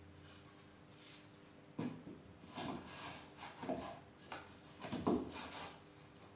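A series of irregular knocks, clunks and rubbing noises, as of hard objects being handled and set down, starting about two seconds in and loudest near the end, over a faint steady hum.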